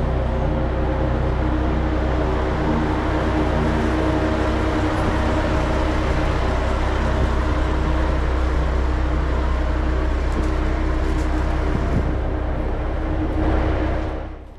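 Diesel railcar engine running steadily with a deep, even hum that does not rise or fall. It cuts off abruptly just before the end.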